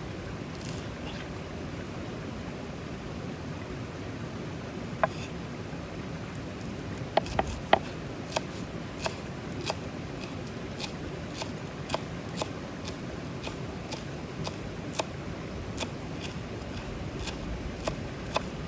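Open-fire cooking: a steady hiss runs throughout. From about five seconds in, sharp clicks or pops come roughly twice a second.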